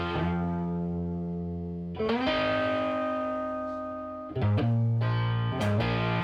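Background music led by guitar: held chords that change about every two seconds, with quicker chord changes near the end.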